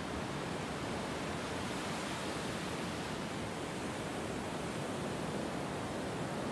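Ocean surf washing up a sandy beach: a steady, even rushing with no separate wave crashes standing out.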